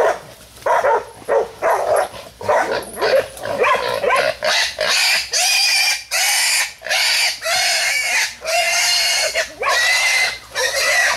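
Hog squealing repeatedly as young hog dogs catch and hold it, mixed with the puppies' barking. The calls come short and quick, about two a second, for the first few seconds, then turn into longer, high squeals about once a second from about four seconds in.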